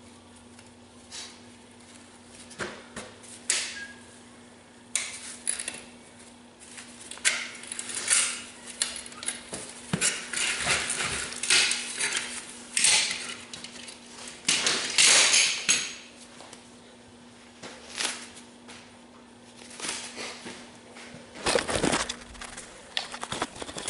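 Irregular metal clinks, taps and scrapes of steel bolts and a wrench being worked into the track of a Bobcat 763 skid steer, coming in scattered bunches with pauses between.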